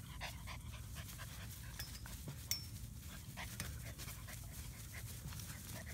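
Six-week-old German Shepherd puppies panting in short, irregular breaths while playing, with one sharp click about two and a half seconds in.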